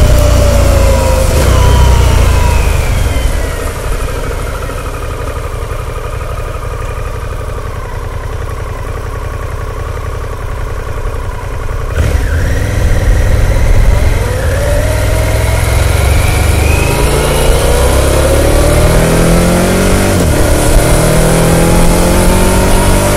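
Liquid-cooled Revolution Max 1250 V-twin of a 2021 Harley-Davidson Pan America Special through its stock muffler, heard from the rider's seat. The engine note falls as the bike slows and runs quieter at low revs for several seconds. About halfway through it gets suddenly louder and climbs as the bike pulls away, dipping once at an upshift before rising again.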